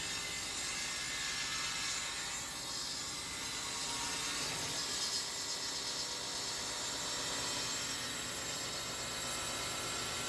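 Table saw running steadily as it rips a cherry board lengthwise, a continuous even whir.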